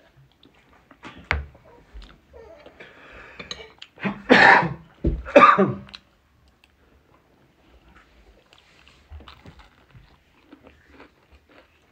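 Close-up eating sounds: chewing and crunching of rice and crispy fried chicken liver, with small wet clicks throughout and two loud bursts of noise about four and five seconds in.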